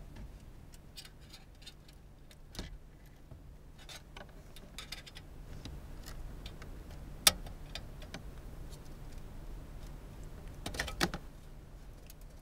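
Clicks and light plastic-and-metal rattles as a car radio head unit is worked out of the dashboard and its rear plugs are handled, with one sharp click about seven seconds in and a short run of clicks near the end, over a low steady hum.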